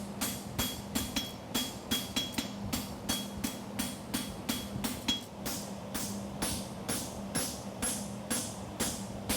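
Hand hammer striking a steel horseshoe on an anvil in an even rhythm, about three blows a second, each with a short metallic ring: the final flattening and fullering of the shoe. A steady low hum runs underneath.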